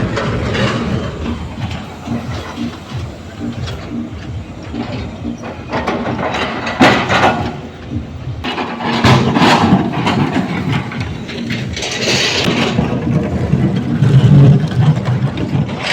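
Heavy diesel engine of an excavator running, with several louder rushes of noise about seven, nine and twelve seconds in.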